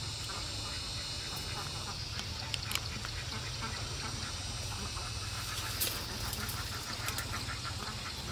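Animal calls over a steady low hum, with a quick, even run of short calls from about six to eight seconds in.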